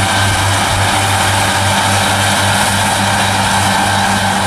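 New Holland farm tractor running steadily while it mows grass with front- and rear-mounted disc mowers: a steady low engine drone with a broad hiss over it.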